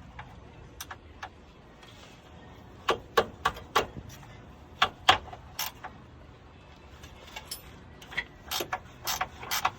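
Hand tools and bolts clicking and clinking against metal: a string of sharp, uneven clicks, loudest around three and five seconds in.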